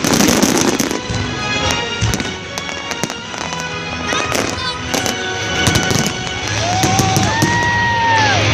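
Fireworks going off in quick succession, sharp bangs and crackling, over background music. Near the end come a couple of whistles that rise and then fall.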